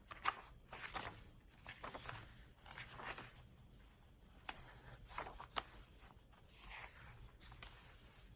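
Paper pages of a handmade journal being turned and handled: soft, irregular rustling and swishing with a few light crisp ticks.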